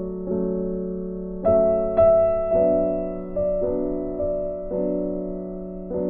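Background music: slow, gentle piano, with notes and chords struck about once a second and left to fade.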